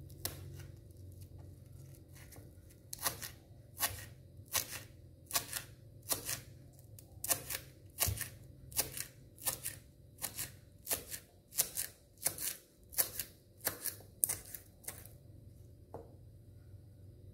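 Kitchen knife slicing turmeric leaves on a plastic cutting board: a steady run of sharp chopping taps, about two a second, starting about three seconds in and stopping shortly before the end.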